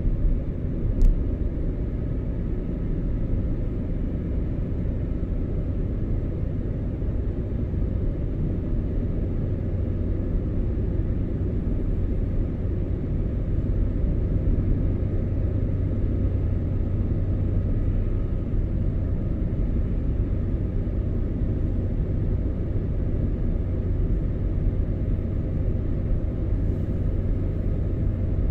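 A car driving at a steady speed: a constant low rumble of engine and road noise, with one short sharp click about a second in.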